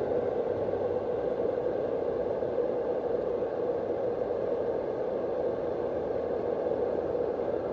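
Fan-type white noise machine running: a steady, even rushing whoosh with most of its weight in the lower middle of the range.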